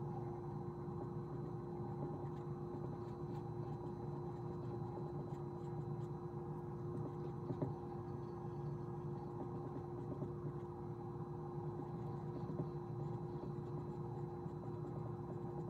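A steady hum made of several constant tones over a low rumble, with a few faint scattered ticks.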